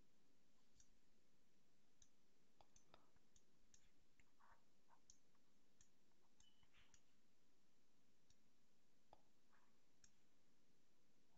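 Near silence with faint, irregular clicks and taps of a stylus on a pen tablet while handwriting is drawn, most of them in the first seven seconds.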